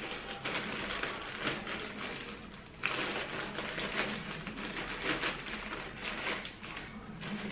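Plastic courier mailer bag rustling and crinkling in irregular bursts as it is handled and opened, with a sudden louder burst about three seconds in.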